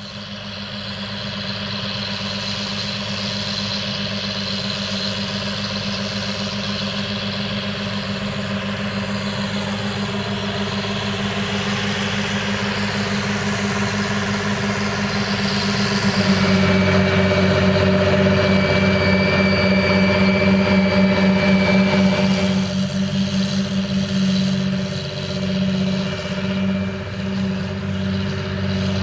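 John Deere 8530 tractor's diesel engine running steadily under load. It fades in, grows louder about halfway through, and rises and falls in level over the last few seconds.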